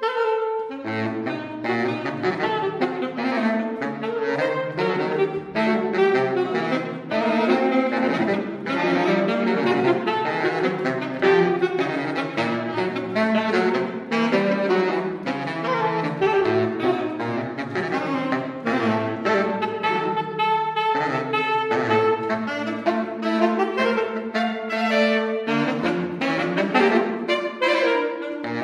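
Two saxophones playing a tango-style canon, one line echoing the other. The lower saxophone reaches down to deep bass notes under the busier upper part.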